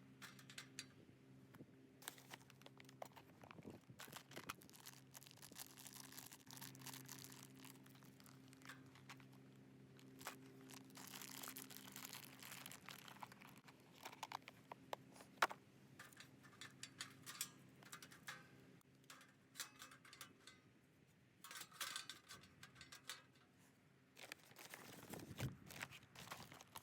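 Quiet, intermittent crinkling and rustling with small clicks and knocks, as crinkly wrapping material is handled, over a faint steady low hum.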